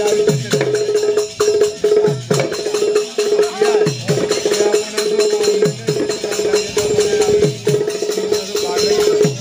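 Live Bundeli Rai folk music: a barrel drum beats a fast, driving rhythm, its deep strokes sliding down in pitch about every two seconds, over a steady, rapidly pulsing high note.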